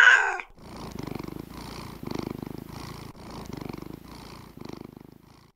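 A domestic cat purring in rhythmic waves that swell and fade with each breath, dying away near the end. It follows the loud end of a meow right at the start.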